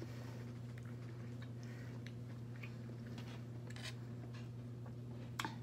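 Quiet eating sounds: soft chewing and small clicks of a spoon on a metal sheet pan, with a sharper click near the end, over a steady low hum.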